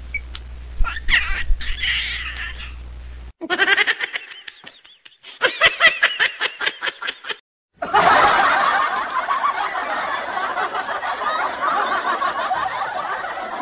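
Spliced comedy laughter sound effects, in three separate clips broken by short silent gaps about a third and halfway through. The last clip is a dense, continuous burst of laughing.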